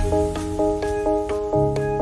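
Background electronic music: synth keyboard notes in a quick, even pattern over a bass line.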